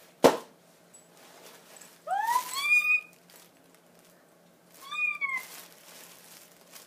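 A sharp knock just after the start, then two high-pitched, wordless excited squeals from a woman, each rising then falling, about two seconds in and again about five seconds in.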